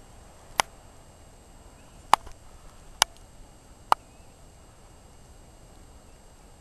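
Four sharp clicks or taps, about a second apart, over a faint steady background.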